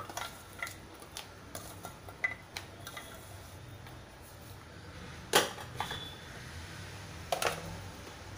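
Scattered clinks and knocks of kitchen bowls being handled on a counter: a steel bowl of cut yam pieces and plastic bowls. The loudest knock comes a little past halfway and another about two seconds later.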